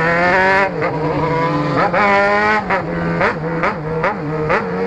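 Yamaha XJ6 inline-four through a loud aftermarket exhaust, revving up hard with gear changes about half a second and two seconds in. In the second half come a run of about five short throttle blips, each a quick rise and fall in pitch.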